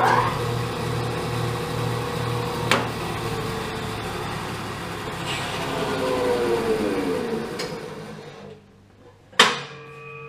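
Laguna 18bx 3 HP bandsaw running steadily with no belt squeal, its drive belt just retensioned. The owner thinks this has cured the squeal. About six seconds in, the saw is switched off and winds down with falling pitch until it stops. A sharp knock follows about nine and a half seconds in.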